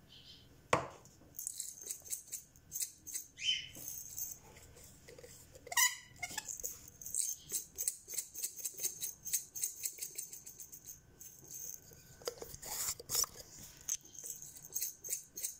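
A glass black-peppercorn grinder being twisted, its mill crunching peppercorns in a long run of rapid, fine clicks. A short squeak comes about six seconds in.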